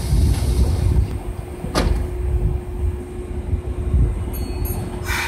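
Nagoya Municipal Subway 3000 series train moving slowly along the platform: a low rumble, with a sharp click about two seconds in and a steady hum from then on.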